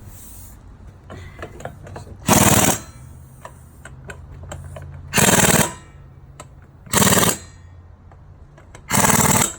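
A hand-held power tool, likely an impact wrench, fired in four short bursts of rapid hammering, about two seconds apart, over a low steady hum.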